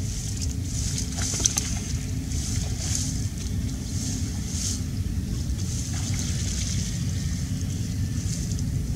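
Low rumble of wind buffeting the microphone, with a high hiss that swells and fades every second or so.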